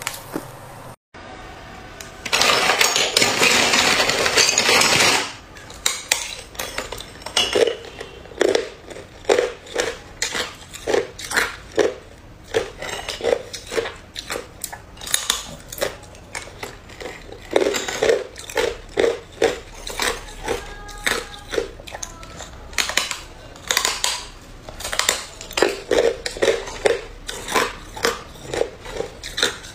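Hard clear ice sticks being bitten and crunched in the mouth: a long run of sharp crunches roughly every half second to a second, with short pauses, and ice pieces clinking against a plastic bowl. Near the start comes a few seconds of loud, dense crackling noise.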